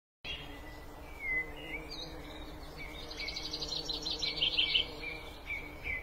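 Several forest birds calling, with short slurred whistles throughout. A quick run of repeated high chirps comes in the middle. A faint low steady hum lies beneath.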